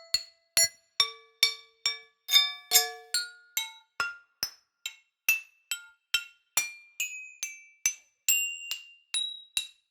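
Pieces of rusted iron struck one after another, about two hits a second, each a sharp metallic clank with a short ringing tone at a different pitch.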